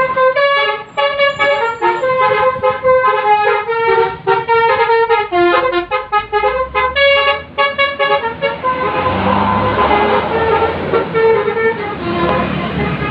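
Basuri telolet bus horn, a multi-trumpet musical air horn, playing a quick tune of short notes that jump up and down in pitch. From about nine seconds in it holds a note, with the bus's engine and road noise underneath.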